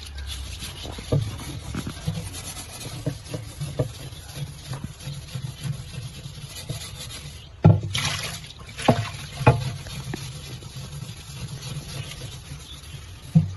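A steel wool pad scrubbing wet grime and dried algae off the glass of an empty aquarium: a steady wet scraping with many small clicks. Several sharper knocks against the glass come a little past the middle and once more near the end.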